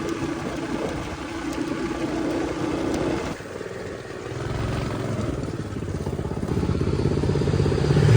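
Mini bike's Predator 212 single-cylinder engine running at a steady speed, dropping off about three seconds in, then running at lower revs that slowly pick up again toward the end.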